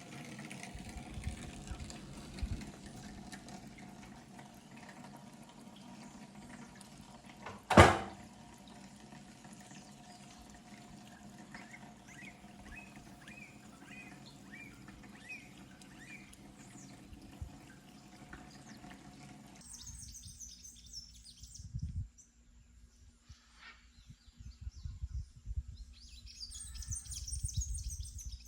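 Small birds chirping over a steady background hum and a watery, hissing noise, with one sharp knock about eight seconds in. About two-thirds of the way through, the background drops away, leaving higher bird calls and low rumbling bursts.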